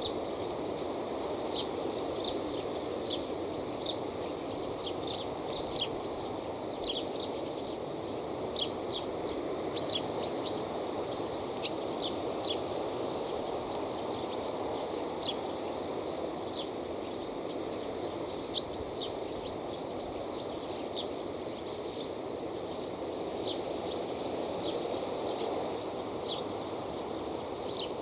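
Forest ambience: birds chirping in short, high calls scattered irregularly, about one a second, over a steady rushing background noise. About two-thirds of the way through there is one sharper, louder chirp.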